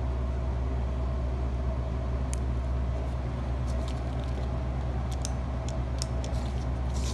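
A steady low machine hum, with a few small sharp clicks from about two seconds in as a carburetor fuel-shutoff solenoid is switched on from a 9-volt battery and its plunger moves in and out, the sign of a working solenoid.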